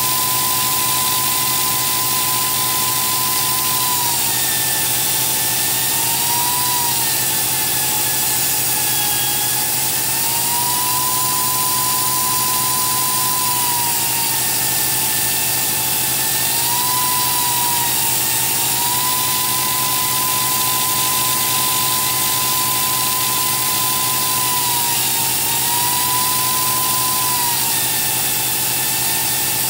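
Robot-mounted grinder grinding weld beads on a steel plate: a steady, loud machine whine that steps down slightly in pitch and back up again several times.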